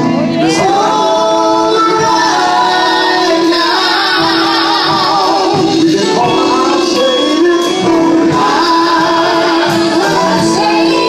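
Live gospel group singing a slow old hymn, voices holding long wavering notes over a steady sustained accompaniment.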